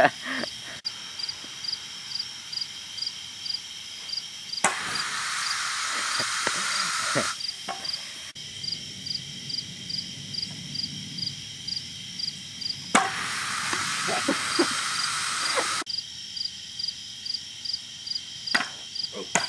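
Crickets chirping steadily, about two chirps a second, with two long hisses of a few seconds each, about a quarter and two-thirds of the way in, and a few sharp knocks.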